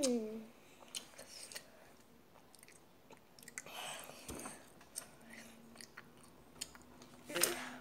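A person chewing gummy jelly candy, with soft clicks and mouth sounds throughout and a longer, louder bout of chewing about four seconds in and again near the end.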